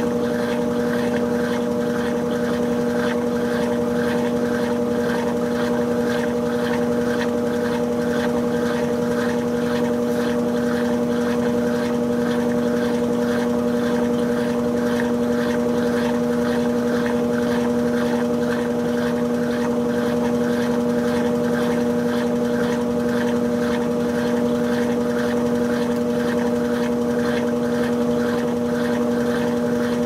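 Brastemp BWK16 16 kg washing machine in its spin cycle, the drum turning at a steady speed with a constant motor hum.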